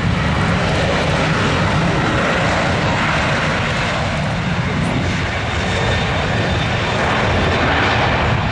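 Boeing 737-800's twin CFM56-7B turbofan engines at takeoff thrust during the takeoff roll: loud and steady, a deep rumble under a broad rushing hiss.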